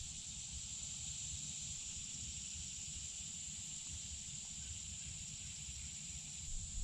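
Kawasaki Vaquero 1700's V-twin engine running as a steady low rumble, heard faintly through a helmet mic under a steady high hiss.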